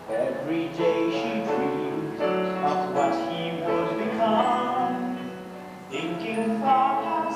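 A song from a stage musical: a woman sings with instrumental accompaniment. After a short lull, a new sung phrase begins about six seconds in, with a man singing.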